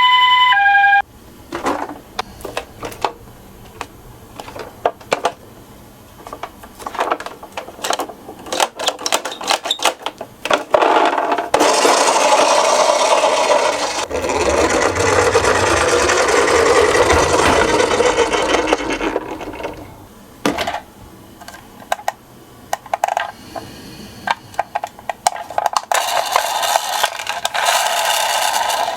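A toy ambulance's electronic two-tone siren, alternating high and low, stops about a second in. Scattered plastic clicks and rattles follow, then a long stretch of rolling and rattling as the toy minicars run down a slope, with more rattling near the end.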